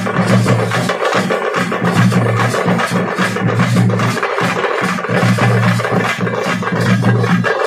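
A thappattam frame-drum troupe beating a fast rhythm together on stick-struck frame drums: dense, rapid strikes, with a low hum coming and going under them.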